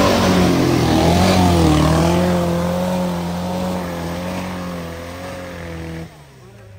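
Classic VW Beetle's air-cooled flat-four engine pulling hard up a steep muddy climb, its steady note growing fainter as the car moves away. The sound drops away abruptly about six seconds in.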